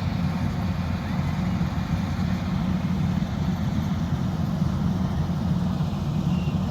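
A large engine running steadily at a constant speed, a low even rumble.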